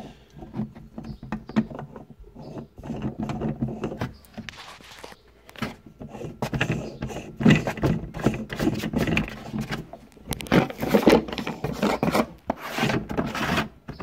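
Plastic nut being turned by hand onto the threads of a plastic bulkhead fitting set through the wall of a plastic storage bin: irregular rubbing, scraping and small knocks of plastic on plastic. The scraping grows louder and rougher in the second half.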